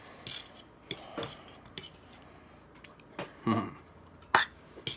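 A fork clinking and knocking against a plate several times, the sharpest knock near the end. About three and a half seconds in comes a short throat sound.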